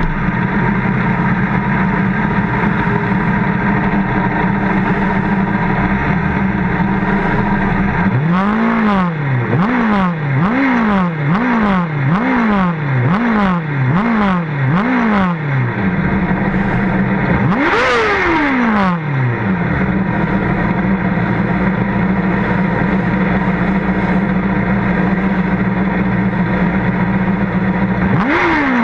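Race car engine idling steadily, blipped in a quick run of about eight short revs a third of the way through, then revved once higher a few seconds later and once more near the end.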